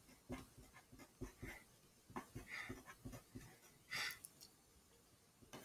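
Faint scratching of a pen on paper in many short, separate strokes as an equation is written by hand, with one slightly louder stroke about four seconds in.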